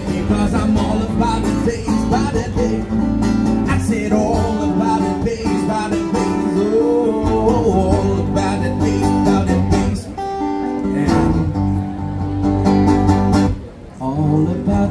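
Live busking duo: a man singing into a microphone with guitar accompaniment, played through a small PA.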